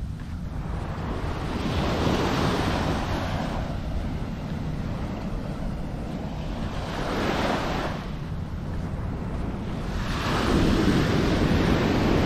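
Waves breaking on a beach, a rushing wash that swells and fades three times, with wind rumbling on the microphone underneath.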